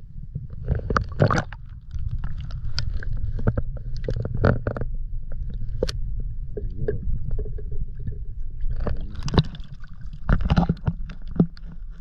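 Muffled underwater sound from a camera held beneath lake water: a steady low rumble with many knocks, clicks and gurgles.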